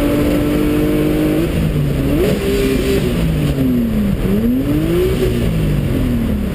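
Mazda MX-6 race car engine heard from inside the cabin, held steady at high revs, then about a second and a half in its pitch jumps and breaks up, followed by several swoops down and up. This is plausibly the missed shift into second on the front straight, which overrevved the engine to about 10,000 rpm and bent the valves.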